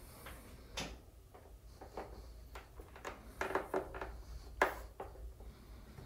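The plastic control panel of an Ariston Velis Evo electric water heater being pressed around its edge to seat it in its clamps: a few separate plastic clicks and knocks, a small cluster about three and a half seconds in and the sharpest about a second later.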